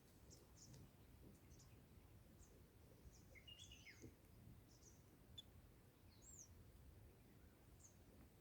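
Faint, high, short chirps from small birds, scattered through a quiet background, with one brief warbled call about halfway through and a single faint click a little later.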